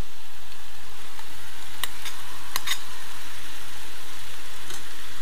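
Chopped carrots and peppers sizzling steadily as they fry in a pan, with a few sharp clinks of a metal spoon as tomato paste is scraped off a saucer into the pan.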